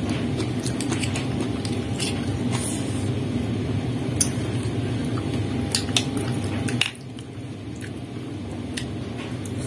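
Close-up eating sounds of meatball noodle soup: wet, squishy mouth noises with scattered sharp clicks of a soup spoon against the bowl. A steady low background noise runs underneath and drops in level about seven seconds in.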